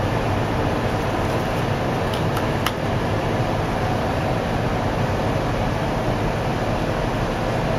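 Steady background rumble and hiss, with a few faint clicks about two to three seconds in.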